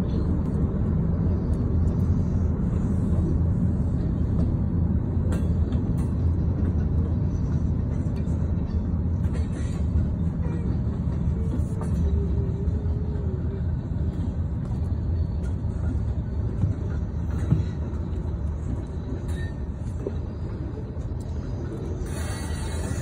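Freight train boxcars rolling past at close range: a steady low rumble of steel wheels on the rails, with a few sharp clicks.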